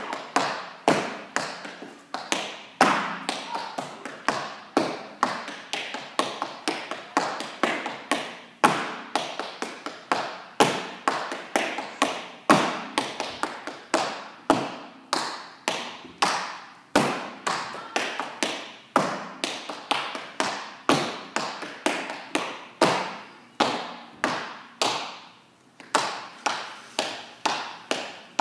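A dancer's shoes striking a hard studio floor, working through dance footwork at slow practice pace: a steady run of sharp taps and stomps in uneven clusters of a few a second, with a brief pause near the end.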